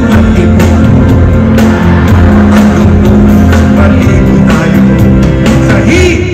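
A live band playing a loud song: drum kit and guitar, with male singers on microphones.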